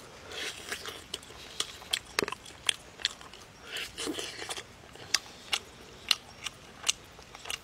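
A person biting and chewing braised meat off the bone, with many irregular sharp wet clicks and smacks of lips and teeth.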